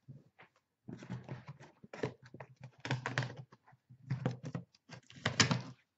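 Cardboard flaps of a large taped shipping box being pulled open and bent back: irregular scraping and rustling, loudest near the end.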